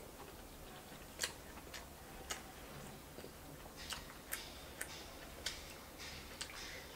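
Faint, irregular sharp clicks from eating red king crab legs, about eight of them spread over several seconds: wet mouth clicks from chewing and crab meat being pulled from the shell.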